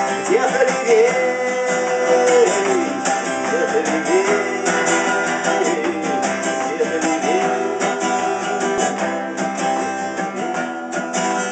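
Acoustic guitar strummed in an instrumental passage of a live song, with a held, bending melody line over the chords.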